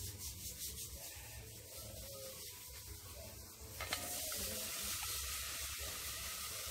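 Vegetables going into melted butter in a hot pot: about four seconds in they hit the butter and a steady sizzle starts and keeps going.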